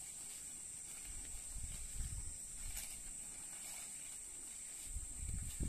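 Steady high-pitched insect chirring, with a few low thumps and bumps about two seconds in and again near the end.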